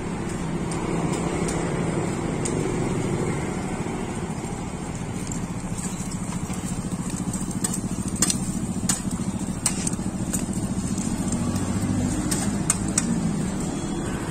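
Steady road traffic with engines running, and a scatter of sharp clicks and taps, most of them in the second half.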